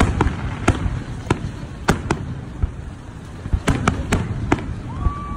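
Aerial firework shells bursting in a string of about nine sharp bangs, irregularly spaced with a lull of a second and a half in the middle, over a steady low rumble.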